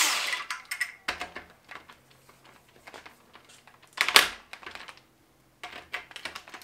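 Cordless impact wrench with a 14 mm socket on an engine-block bolt, its run dying away at the start, then scattered light metallic clicks from the socket and bolt, and one short burst of the wrench about four seconds in.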